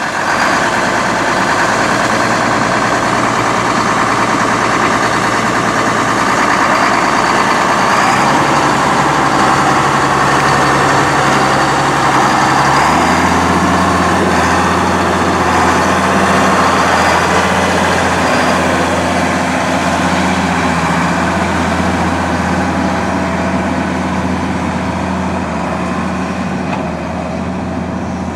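1994 Case IH 7250 Magnum tractor's Cummins 8.3-litre six-cylinder turbo diesel running steadily. Its engine note shifts in steps twice, about eight seconds in and again about thirteen seconds in, as the engine speed is changed.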